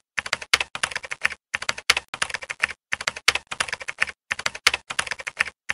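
Computer keyboard typing sound effect: rapid runs of key clicks with short pauses between them, laid over on-screen text being typed out letter by letter.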